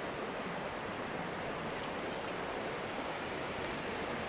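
Steady sound of stream water running, an even noise with no separate events.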